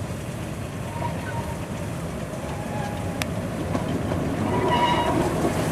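A 15-inch gauge miniature diesel locomotive hauling passenger carriages approaches, its engine running steadily and growing louder. There is one sharp click about three seconds in, and faint high squeals from the train near the end.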